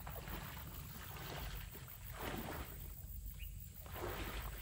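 Faint sloshing of water and swishing of grass from a person wading through a flooded, weedy marsh.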